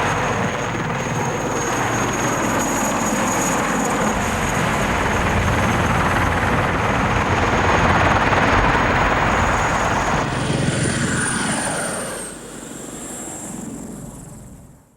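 Helicopter running: a fast rotor chop under a steady high turbine whine. About ten seconds in, the whine changes to a higher pitch that slides slightly down. Soon after, the sound drops in level and fades out near the end.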